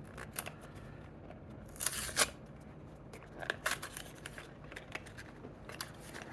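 Cardboard box of Kodak Gold film being opened and handled: a short tearing rustle of the flap about two seconds in, with scattered light clicks and taps.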